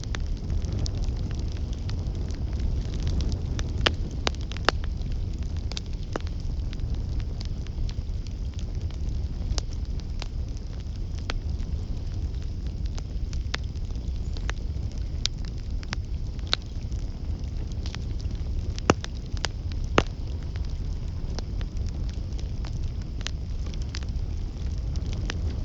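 Campfire burning: a steady low rumble of flames with frequent sharp wood crackles and occasional louder pops.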